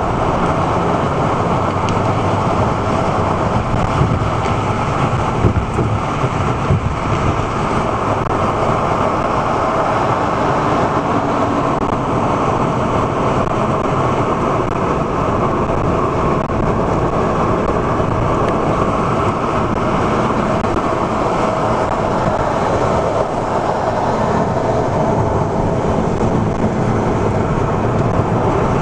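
Steady road noise of a car at highway speed heard from inside the cabin: tyre and engine rumble with a few small bumps a few seconds in.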